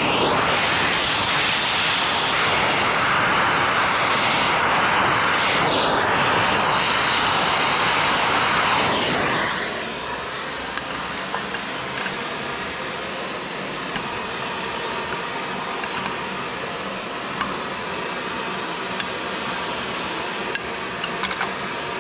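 Gas torch flame hissing steadily as it heats a seized hydraulic line nut on a tractor's cast-iron rear-end housing to free it. The flame shuts off about nine seconds in, leaving a lower steady hiss with a few light clicks.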